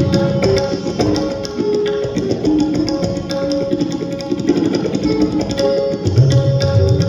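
Tabla playing a fast stream of strokes under a melodic line from the sarod. The deep bass drum strokes are heavy at the start, thin out in the middle, and come back strongly about six seconds in.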